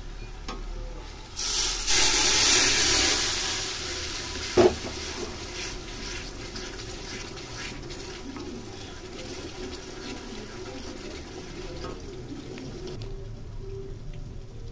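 Curry masala in a steel kadai bursting into a loud sizzle about a second and a half in, the hiss fading away over the next two seconds. A single sharp clank of the spatula on the pan follows, then a low steady sizzle.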